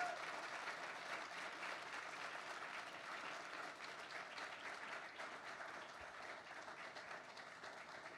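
Audience applauding: many hands clapping together, slowly dying away.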